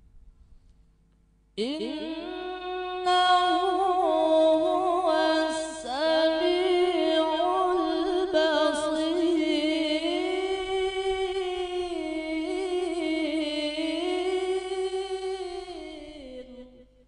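A man's voice reciting the Quran in the melodic tilawah style into a microphone. He holds one long unbroken phrase of about fifteen seconds, full of quick wavering ornaments. It begins about a second and a half in and falls in pitch as it fades near the end.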